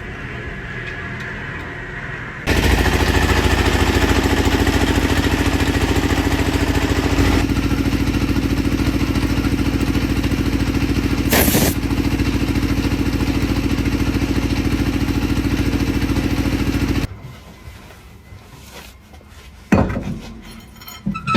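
A loud machine starts suddenly a couple of seconds in, runs steadily with a fast, even pulsing for about fifteen seconds and cuts off abruptly. There is a short hissing burst about two thirds of the way through.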